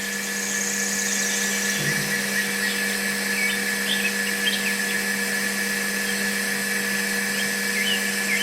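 A small electric motor runs steadily with an even hum, while birds chirp in the background.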